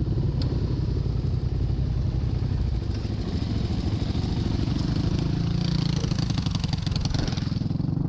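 Single-cylinder four-stroke engine of a Yamaha XT350 trail bike running steadily at low speed. From about five to seven and a half seconds in, a second single-cylinder dirt bike, a Suzuki DR350, rides close past and its engine note swells over it.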